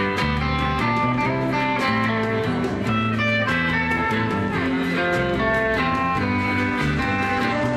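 Live surf-rock instrumental: an electric lead guitar plays a melody of single notes over rhythm guitar, bass guitar and a drum kit keeping a steady beat.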